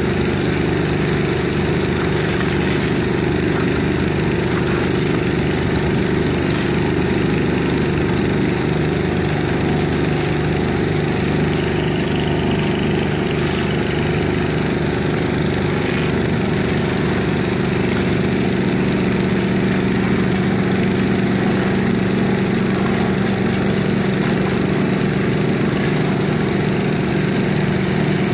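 An engine running steadily at a constant speed, its low hum strengthening a little about two-thirds of the way through, over the steady hiss of water jets from fire hoses.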